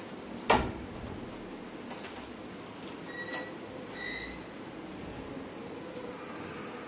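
A door bangs once, sharply, then two short high electronic beeps sound about three and four seconds in.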